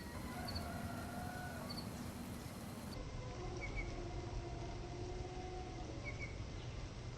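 Rural outdoor ambience: small birds chirping in short paired notes, with a few longer held calls from distant animals over a low steady background noise.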